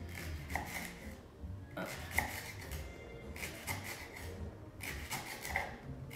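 Kitchen knife slicing through a leek white onto a wooden cutting board: a series of short, sharp cuts at an uneven pace, roughly one every half second.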